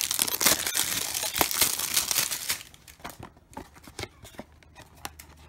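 Cardboard Garbage Pail Kids vinyl-figure blind box being torn open by hand: a crinkly tearing rustle for about two and a half seconds, then a few light clicks and taps as it is handled.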